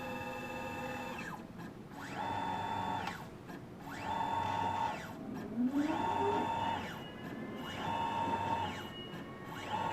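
Small electric motor whining in short repeated runs: after a steady hum for the first second, it spins up, holds a steady whine for under a second and winds down again, five times, about every two seconds. It is the strange motor noise of a motorized stage that does not move.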